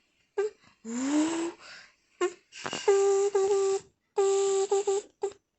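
A boy imitating a truck noise with his voice: a few short hoots, a rising pitched sweep with a hiss, then held horn-like tones with breathy hiss, cut into short blasts.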